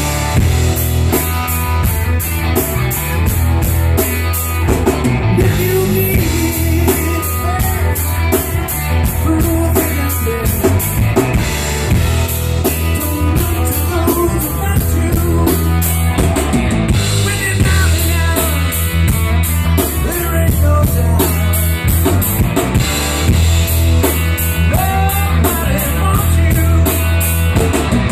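Live rock band playing: two electric guitars, an electric bass and a drum kit, with the drums keeping a steady beat.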